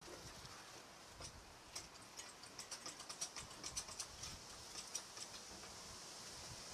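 Faint, irregular light clicks, a dozen or so over a few seconds, from a foot-pumped red motorcycle lift jack being worked under a chopper. The clicks stop about five seconds in.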